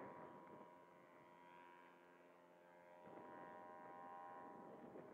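Faint, distant buzz of a radio-controlled model Fokker D.VIII's motor in flight, a steady drone that grows a little louder about three seconds in.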